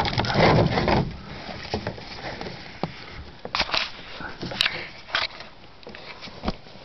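Rustling with scattered clicks and scrapes as a buckle-style snowshoe binding strap is pulled and worked by hand to seat its tooth in a notch, loudest in the first second.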